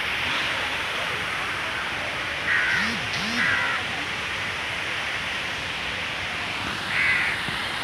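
A crow cawing three times, two calls close together and a third near the end, over a steady background hiss.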